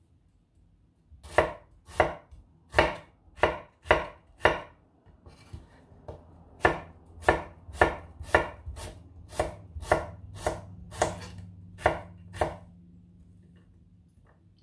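Chef's knife slicing garlic cloves on a bamboo cutting board, the blade knocking sharply on the board with each stroke: about six spaced strokes, a short pause, then a faster, even run of about a dozen strokes.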